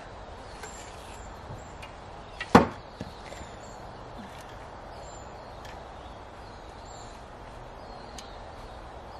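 A garden shovel put down with one sharp metal clank about two and a half seconds in, after a few faint scrapes and knocks of compost shovelling. A steady low background noise runs underneath.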